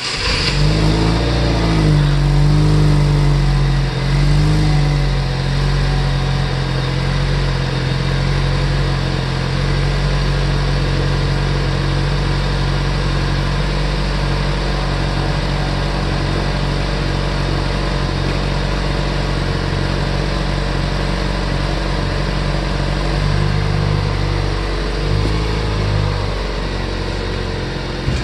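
Chevrolet Cruze's swapped-in 2.0 L LHU turbocharged four-cylinder just after a cold start, running through a 3-inch exhaust into the stock Cruze muffler with the cutout closed. Its fast idle wavers for the first few seconds, then settles into a steady idle, with two brief shifts in engine speed near the end.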